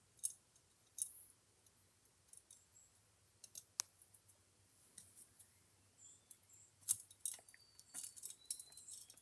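Faint, scattered clicks and small metallic taps of a small screw and magnetic screwdriver against the metal parts of a phonograph tonearm as the screw is fitted into the yoke, with the sharpest click about seven seconds in and a run of quicker taps near the end.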